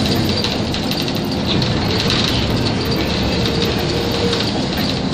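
City bus heard from inside the cabin while driving: steady engine and road noise.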